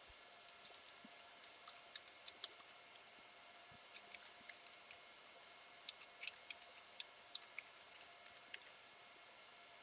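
Faint computer keyboard typing: scattered, irregular keystroke clicks in two spells with a short pause between them, as details are entered into a web setup form.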